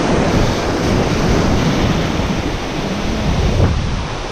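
Ocean surf washing against the shore, with wind buffeting the microphone in a steady, heavy rumble.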